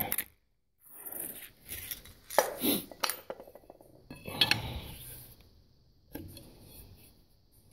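Metal clinks and scrapes from the stuck back-gear handwheel of a Logan lathe headstock being worked and forced outward: a string of short sharp clinks and brief scraping, the sharpest about two and a half, three and four and a half seconds in.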